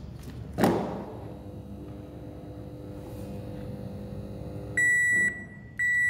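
A sharp knock with a ringing tail, then from near the end an electronic beeper sounding half-second high-pitched beeps about once a second.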